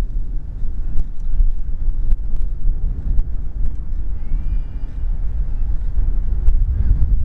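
Wind buffeting the microphone of a camera carried on a moving bicycle: a loud, steady low rumble. A few sharp clicks come through, and a short high whistling tone sounds about four seconds in.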